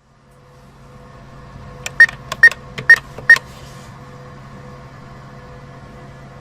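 ATM keypad with a PIN being typed in: four key presses about half a second apart, each a click with a short high beep. Under it a steady machine hum fades in at the start and carries on after the presses.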